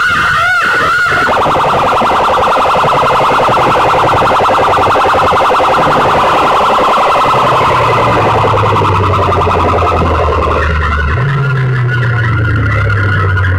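Banks of horn loudspeakers blaring an electronic siren-like effect at full volume. A warbling tone gives way about a second in to a rapid buzzing flutter. A low droning tone joins about halfway through and jumps up in pitch near the end.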